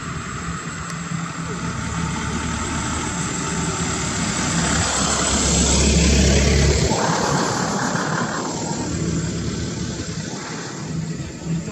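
Airliner passing low overhead: a loud engine roar that swells to a peak about six seconds in, with a heavy low rumble, then a higher whine as it moves away and fades.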